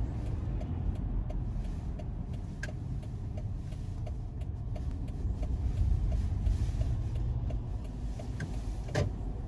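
Car cabin road and engine rumble while driving slowly, with the turn-signal relay ticking faintly about every two-thirds of a second. A single knock near the end.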